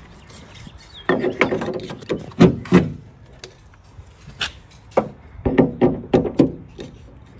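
Knocks and rubbing from a black insulator pad being handled and pushed against the sheet-metal inner panel of a van's rear door, in two short clusters with a couple of single knocks between.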